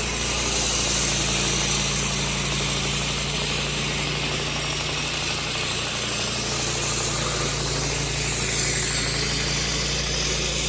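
An engine idling steadily, with an even hiss over it.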